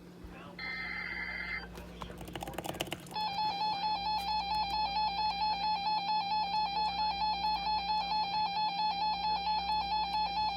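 Emergency Alert System tones announcing a tornado warning: a burst of shrill digital data-header screech in the first seconds, then, about three seconds in, the steady two-tone attention signal begins and sounds on with a regular warble.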